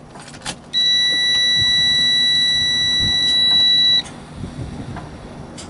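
Semi-truck dashboard warning buzzer sounding one steady high-pitched tone for a little over three seconds, then cutting off suddenly, as the ignition is switched on before the engine is started. A few light clicks come just before it.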